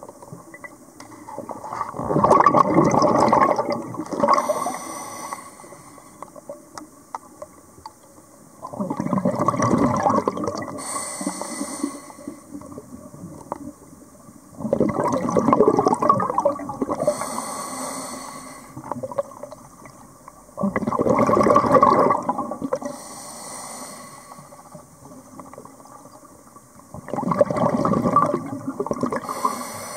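A scuba diver breathing through a regulator underwater. Five times, about every six seconds, exhaled bubbles gurgle out for a couple of seconds, and each burst is followed by a shorter, fainter hissing inhale.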